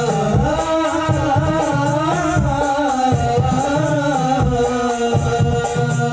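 A group of men singing a drawn-out, wavering Arabic sholawat melody over a steady beat of frame drums and jingles, amplified through a small home sound system.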